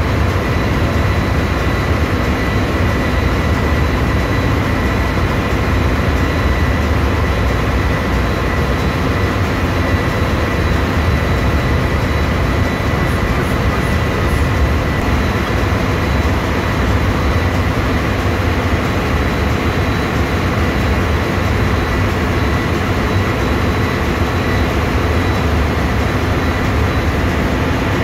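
Loud, steady engine-room noise of a ship's running diesel generator sets: a constant low drone with a thin steady whine over it, unchanging throughout.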